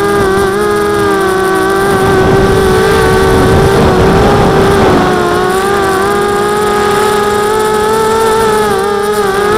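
FPV quadcopter's electric motors and propellers whining steadily, several close pitches that drift slightly with throttle. A rushing of air swells for a few seconds in the middle as the drone drops toward the field, then the steady whine carries on.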